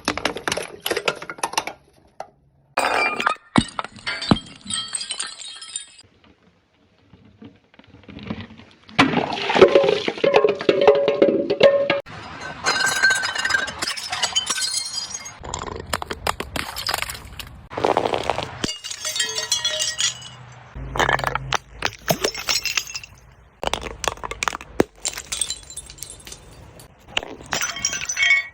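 Glass bottles breaking and shattering again and again in short cut-together clips, with glass shards clinking and tinkling after each crash. There are two brief pauses, one about two seconds in and a longer one around six to eight seconds in.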